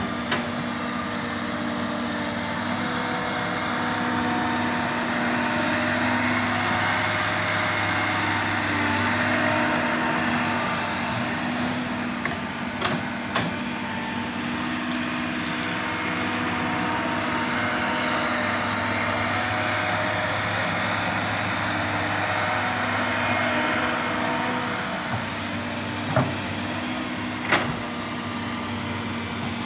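Komatsu PC200 hydraulic excavator's diesel engine running steadily while it digs, its sound swelling for several seconds at a time as it works, with a few short knocks.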